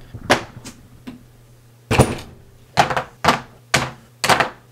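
A run of hard clacks and thunks, roughly one every half second, as sharpening stones in plastic holders and parts of a blade-angle sharpening system are set down one after another on a cutting mat.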